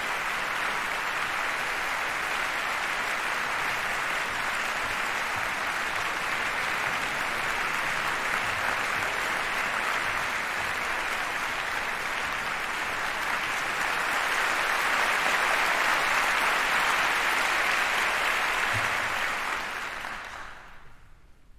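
Audience applauding steadily in a concert hall, swelling slightly, then fading away near the end.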